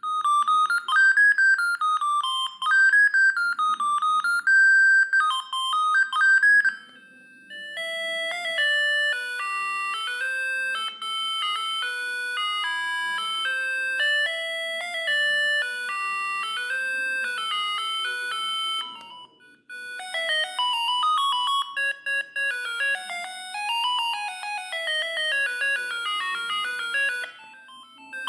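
Siemens S45i mobile phone playing its built-in ringtones through its small speaker: three different beeping electronic tunes in turn, each ended by a brief pause. The first tune is the loudest, and a fourth starts at the very end.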